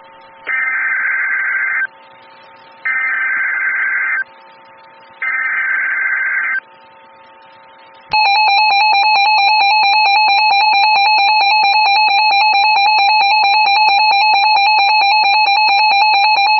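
Emergency Alert System signal on NOAA Weather Radio: three short, buzzy digital header bursts about a second apart, then, about 8 seconds in, the loud, steady two-tone EAS attention signal begins. It marks the start of a tornado emergency alert.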